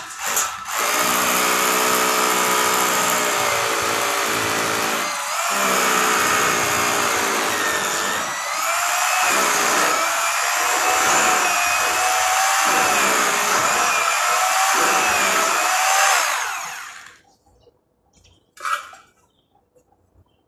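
Handheld power drill running under load through one long drilling pass, its motor whine wavering and sagging in pitch as it bites, then stopping a few seconds before the end; a short knock follows a moment later.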